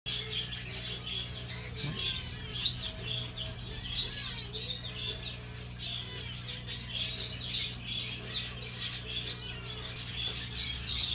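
Many small cage birds chirping and twittering at once, a dense, continuous chatter, over a steady low hum.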